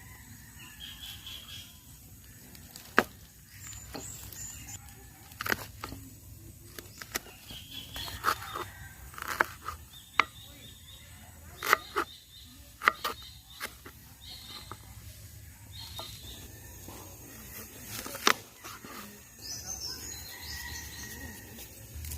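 Irregular sharp clicks and knocks of small objects being handled, about a dozen spread unevenly, over outdoor ambience with birds chirping now and then.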